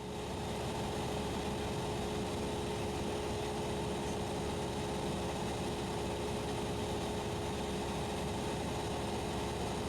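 Cessna 172SP's Lycoming IO-360 engine idling, heard as a steady cockpit drone with a few held tones.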